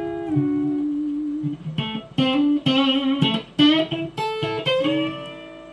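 Guitar notes played through a repaired Mesa M-Pulse 600 amplifier as a playing test. One long ringing note is followed, from about two seconds in, by a run of single plucked notes, each left to sustain.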